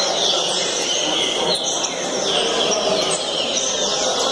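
Several caged double-collared seedeaters (coleiros) singing at once, many overlapping high chirps and whistled phrases, over a steady murmur of people talking.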